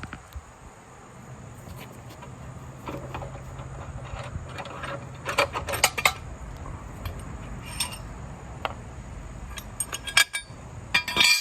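Metal parts clinking as a loosened mower blade, its bolt and washers are handled: scattered sharp clinks with a short ring, bunched about halfway through and again near the end. A faint low hum runs underneath through the middle.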